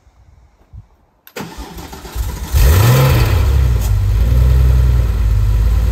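Cold start of a 1995 Porsche 993 Carrera 2's air-cooled 3.6-litre flat-six. The starter cranks for about a second, the engine catches, flares up in revs, then drops back and settles into a steady idle.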